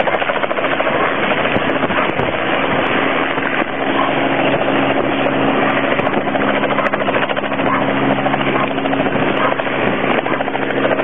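Helicopter running steadily: a fast, even rotor chop over a steady engine hum.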